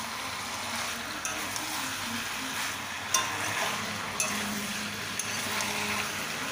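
Chicken curry sizzling in a pan as it is slow-sautéed (kosha) and stirred with a metal spatula, with a few sharp clicks of the spatula against the pan.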